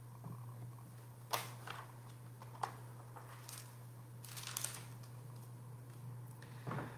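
Quiet room tone with a steady low hum and a few faint, scattered clicks and rustles, like small handling noises.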